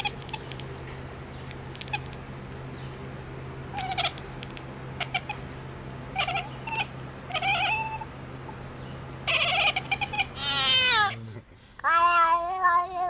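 A cat meowing: several short meows, then a long falling meow, and a long wavering yowl near the end. A steady low hum runs underneath and stops about eleven seconds in.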